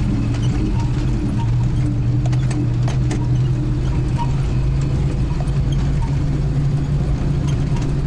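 A vehicle engine running steadily while driving on a rough dirt logging road, heard from inside the cab, with scattered small knocks and rattles, a cluster of them about two and a half to three seconds in.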